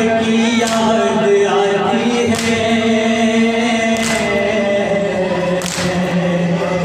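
Unaccompanied male voices chanting a noha, a Shia lament, in long held, wavering lines. Four sharp strikes of chest-beating (matam) fall at an even pace, about one every 1.7 seconds.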